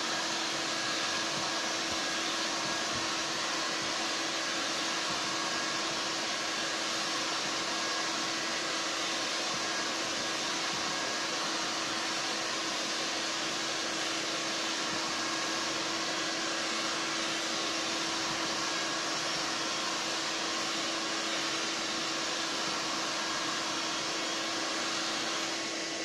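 A handheld heat gun blowing hot air onto a plastic sheet in a vacuum-forming frame, softening it before forming, together with a vacuum cleaner running on the vacuum-forming box. A steady rushing noise with a constant hum, unchanging throughout.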